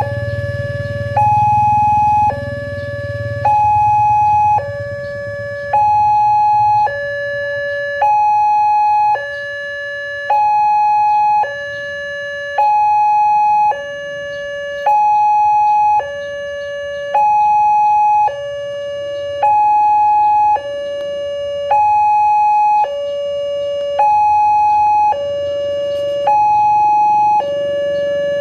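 Railway level-crossing early-warning siren sounding from a horn loudspeaker on the signal pole. It is a two-tone alarm that alternates steadily between a higher and a lower note, each held about a second, warning that a train is approaching.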